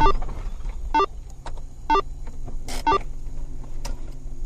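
Short electronic beeps repeating about once a second, over the low steady hum of a car cabin on the move.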